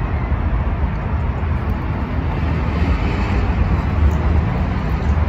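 Steady low rumble of city background noise, like distant road traffic, with no distinct event standing out.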